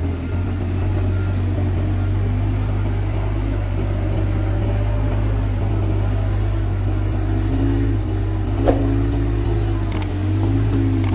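Bobcat S130 skid steer loader's diesel engine running with a steady deep drone, its pitch wavering slightly under load toward the end. A single sharp knock comes about two-thirds of the way through, and a couple of clicks follow near the end.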